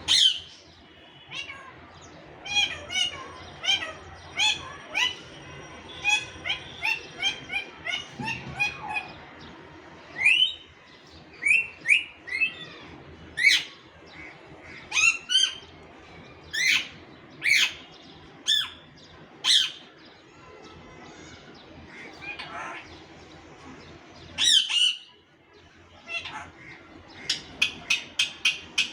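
Pet parrot squawking and chirping: runs of short, sharp calls, with a loud squawk at the start, a lull about three-quarters of the way in, and a quick string of calls near the end.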